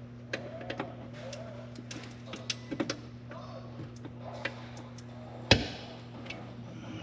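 Light clicks and taps of hand tools and engine parts being handled, with one sharper knock near the end, over a steady low electrical hum.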